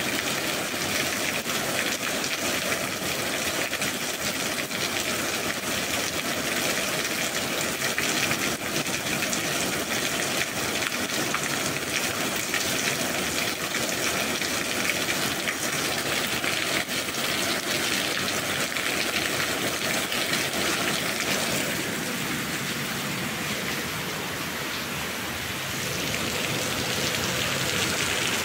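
Steady rain, an even hiss of many drops, easing a little for a few seconds about three-quarters through.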